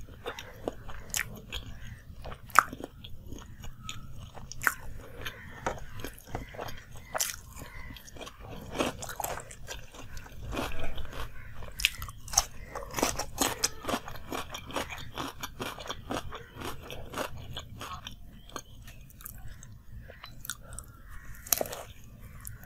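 Close-miked eating: crisp crunching bites and wet chewing of a deep-fried samosa and raw vegetables, with many sharp crackles that are busiest about halfway through.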